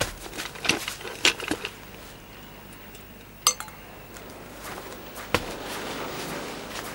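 Glassware and dishes being set down: a few light knocks and clinks, then a single glass clink about halfway through that rings briefly.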